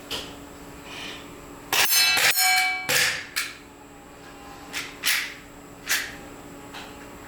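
Sharp metallic clicks and clacks from a Glock 19 gas blowback airsoft pistol being worked, with a louder ringing clatter about two seconds in and single clicks every second or so after it.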